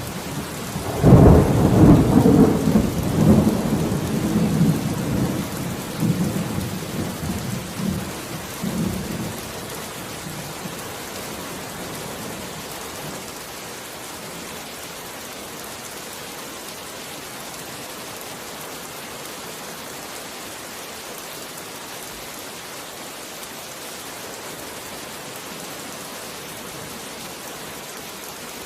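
A thunderclap breaks about a second in and rumbles on, dying away over the next several seconds, over steady heavy rain. The rain keeps falling evenly after the thunder has faded.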